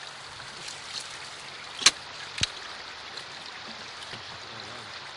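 Shallow river water running steadily over rocks, with two sharp clicks about half a second apart a little under two seconds in, the first the louder.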